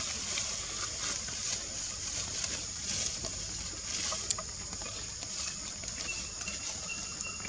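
Forest ambience: a steady high hiss with a few faint scattered clicks and rustles, and a faint thin steady tone entering near the end.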